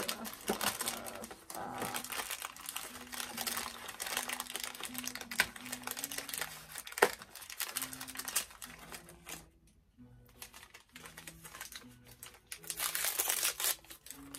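Plastic toy packaging crinkling and rustling as doll accessories are unwrapped by hand, in irregular bursts that pause briefly about two-thirds of the way through and come back loudest near the end. Faint background music plays underneath.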